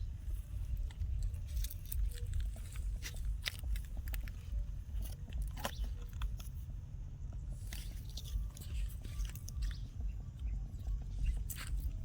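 An animal chewing and crunching food, with irregular crisp crunches over a steady low rumble.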